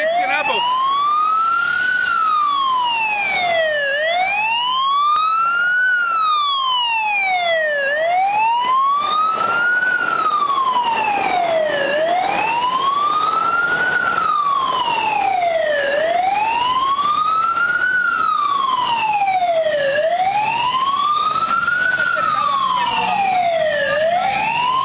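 Fire engine's wailing siren, its pitch rising and falling smoothly in a steady cycle, one full rise and fall about every four seconds.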